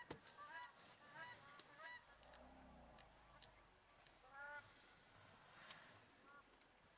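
Short honking animal calls, repeated roughly every half second during the first two seconds, with a louder honk about four and a half seconds in. A low elephant rumble lasting about a second starts about two seconds in.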